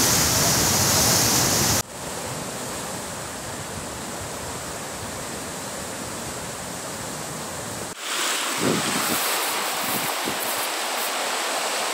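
Steady rushing of a muddy river in flood, running high over its banks. The level drops suddenly about two seconds in and comes back up about eight seconds in.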